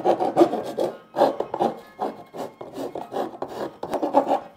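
Round file rasping back and forth in a freshly drilled hole in a plastic case, cleaning up the edge of the hole. It comes as quick strokes, about two to three a second, with a short break about a second in.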